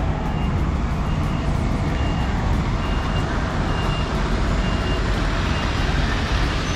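Heavy diesel truck engine running as a MAN TGX semi-truck pulls up close at low speed, with a reversing alarm beeping steadily about once a second.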